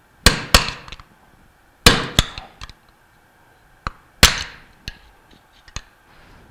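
Hammer blows on a screwdriver set against the brass shaft sleeve of a Bell & Gossett 1510 pump, driving the heated sleeve off the shaft. The blows are sharp metallic strikes with a short ring, coming in pairs and then singles. The sleeve is stuck fast with Loctite and heated with a torch to loosen it.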